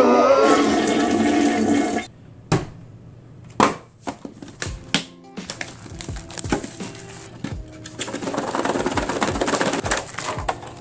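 A short burst of music fills the first two seconds. Then hands unpack a metal Pokémon card tin from its plastic packaging, with scattered clicks and knocks of tin and hard plastic, and rustling of plastic wrap that thickens about eight seconds in.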